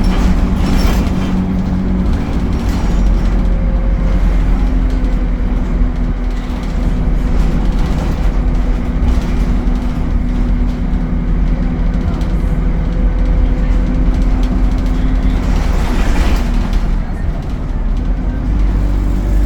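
ADL Enviro 200 bus with an Allison automatic gearbox running: a steady mechanical drone with a held whine that comes in about four seconds in and fades near the end.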